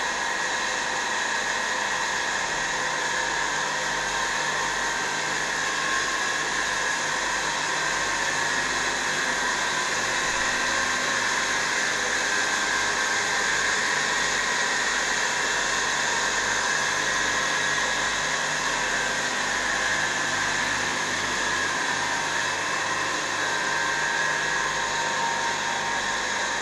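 Straight-line glass edging machine running steadily: its motors and grinding spindles give an even hiss with several steady whining tones.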